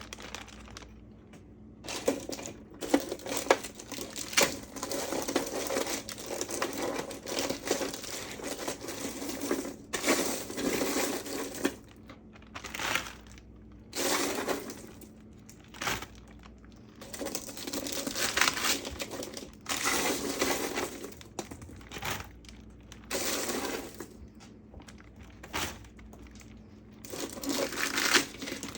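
Plastic meal-prep containers and bags being handled and packed: crinkling and rustling in irregular bursts, with occasional sharp clicks and taps.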